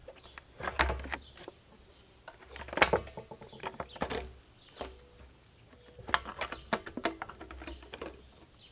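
Plastic parts of a pool sand filter assembly being handled and fitted together: irregular clusters of sharp clicks and knocks, some ringing briefly, over a low rumble of handling noise.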